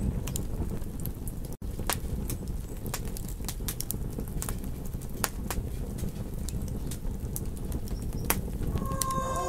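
Campfire crackling: irregular sharp pops and snaps over a steady low rumble of burning, with the sound cutting out for an instant about a second and a half in. Near the end, long wavering howls rise in over it.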